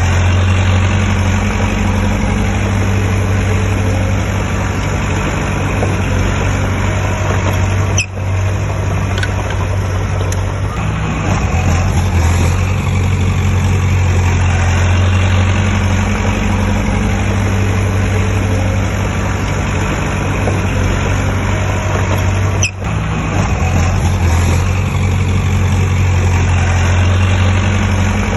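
Heavy diesel engine of earthmoving equipment running steadily with a deep, constant hum. The sound drops out for a split second twice.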